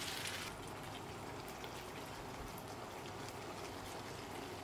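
Vegetables in tomato sauce sizzling and bubbling in a hot pan, a steady fine crackling hiss. It is a little louder for the first half-second as the green beans are tipped in, then settles.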